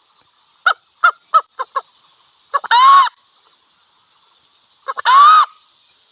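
Wild hen calling: a quick run of five short clucks, then two longer honking calls that rise and fall in pitch, about two seconds apart.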